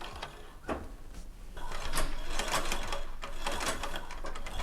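Vintage Singer 128K sewing machine worked by its foot treadle, its mechanism starting up about a second and a half in and running with a fast, even clatter.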